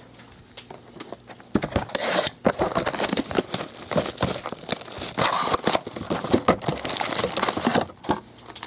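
Clear plastic wrapping crinkling and tearing as a trading-card box and its packs are handled and opened, a dense run of crackles starting about one and a half seconds in and stopping near the end.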